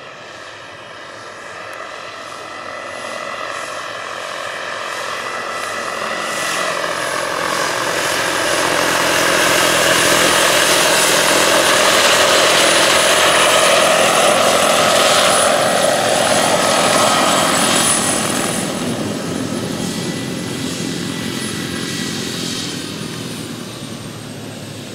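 Turbine-powered large-scale RC model of a Eurocopter H120 Colibri helicopter: a high turbine whine over rotor and engine noise, swelling as it flies in close and hovers, loudest in the middle, then easing off near the end as it sets down.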